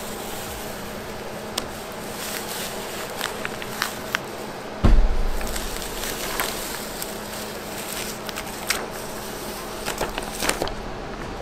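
Paper stencil, stuck down with spray adhesive, being peeled off a sheet of OSB, crackling and rustling as it lifts, with a low thump about five seconds in.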